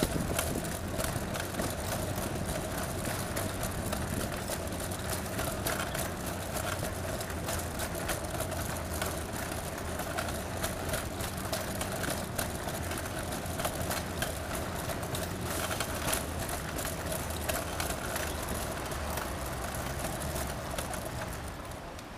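City-centre street ambience: steady traffic and engine noise with a constant hum, dotted with many short clicks and knocks.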